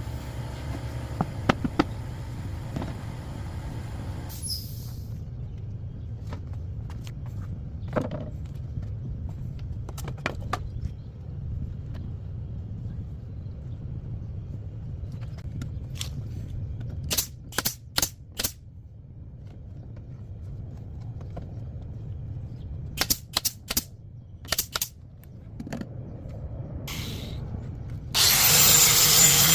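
Woodworking on a broken wooden chair: scattered sharp knocks and taps over a low steady hum, including a quick run of four strikes about halfway through and another cluster a little later. Near the end a loud power tool starts up and runs steadily.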